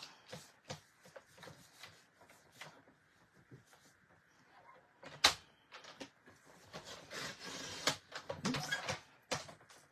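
Sliding paper trimmer cutting black cardstock: scattered clicks and taps as the card is positioned against the rail, a sharp click about five seconds in, then the blade carriage sliding down the rail with a rasping cut through the card.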